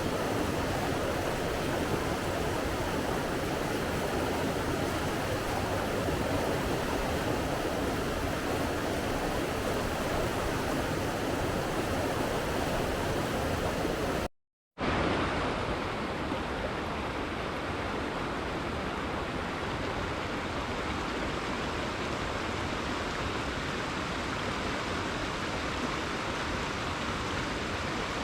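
Steady rushing of sea waves and surf, an even wash of water noise. Just past halfway it drops out to silence for a split second, then resumes slightly duller, at an edit between clips.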